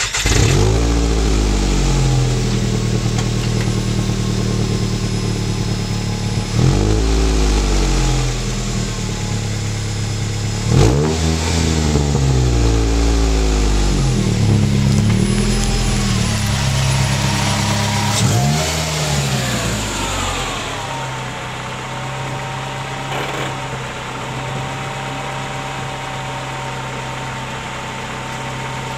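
Nissan Sentra SE-R Spec V's QR25 2.5-litre four-cylinder engine with a full aftermarket exhaust, revved again and again in short blips that rise and fall back. From about two-thirds in it settles into a steady, lower running note.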